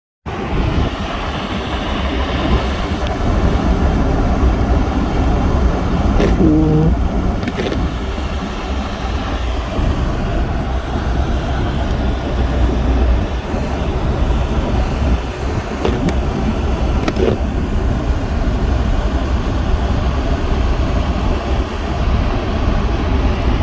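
A vehicle driving, with a steady deep engine and road rumble. A few brief knocks come through, and there is a short pitched squeak about six seconds in.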